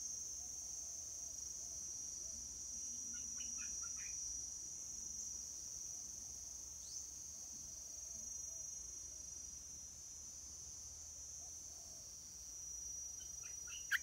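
Insects trilling steadily at a high pitch. Short bird chirps come in two quick clusters, about three and a half seconds in and again near the end.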